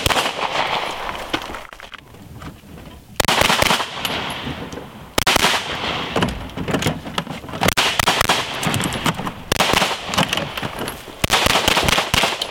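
Handguns fired in fast strings of shots, several strings in a row with short breaks between them.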